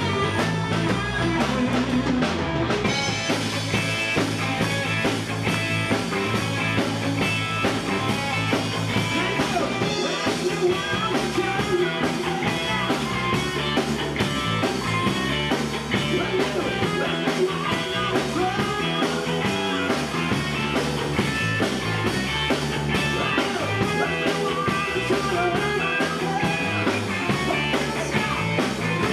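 Live rock band playing: electric guitar, bass and drum kit, with a male singer at the microphone. The band's sound fills out about three seconds in.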